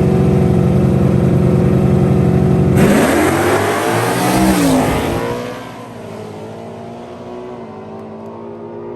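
Drag-racing cars held at high revs on the line, then launching about three seconds in with a sudden loud burst of exhaust. The engine pitch rises and falls as they pull away, then drops to a quieter, steadier engine sound a couple of seconds later.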